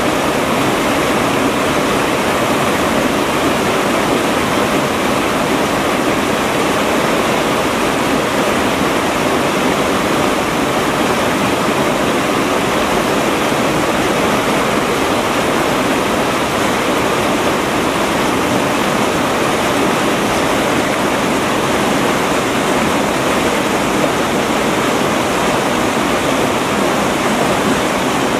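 River water rushing through white-water rapids and breaking over boulders: a loud, steady rush with no let-up.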